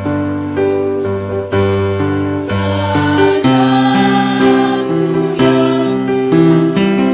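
A choir singing a slow song in held chords, the notes changing every second or so.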